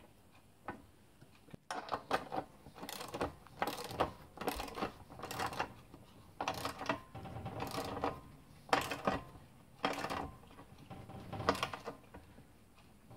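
Socket ratchet clicking in short bursts of strokes with brief pauses between them, as nylock nuts are tightened onto square-headed bolts holding a mower's handle bracket.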